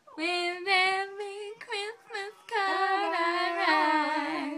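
A woman singing: a run of short notes, then a longer held phrase that stops abruptly near the end.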